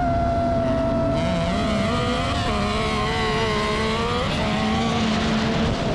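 FPV racing quadcopter's motors and propellers whining, the pitch steady at first and then wavering with throttle changes. A lower engine note from the autocross buggy runs beneath.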